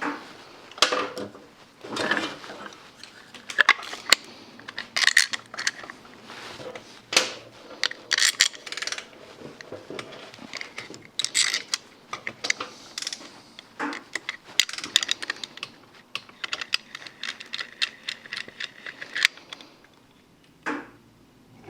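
Hand tools on motorcycle hardware: irregular metallic clinks and clicks of sockets and bolts, with a quicker run of ratchet clicking about two-thirds of the way through.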